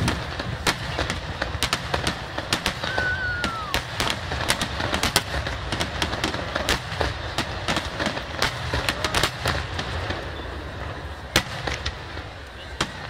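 Rapid-fire starmine fireworks barrage: aerial shells, some of them large, going off one after another with sharp bangs several times a second, thinning out near the end.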